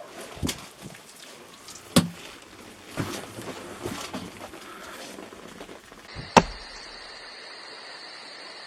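Scattered knocks and scrapes of brick and stone masonry work, with one loudest knock about six seconds in. After that a steady hiss runs on.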